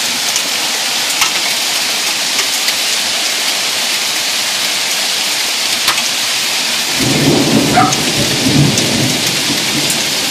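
Heavy rain and hail coming down in a steady hiss, with scattered sharp clicks of hailstones striking. About seven seconds in, a low rumble of thunder joins it.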